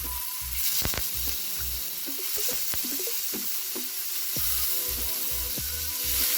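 Marinated fish pieces sizzling as they shallow-fry in coconut oil, a steady hiss, with a few sharp clicks about a second in.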